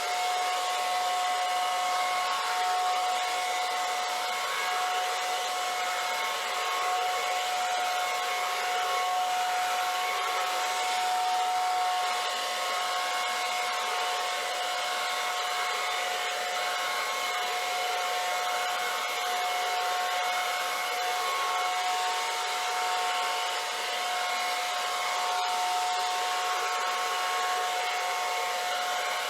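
Handheld hair dryer running steadily, a constant whine over the rush of blown air.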